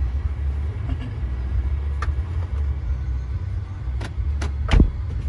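Steady low rumble of a parked car idling, with a few sharp clicks and knocks near the end, the loudest a heavy thump shortly before the end.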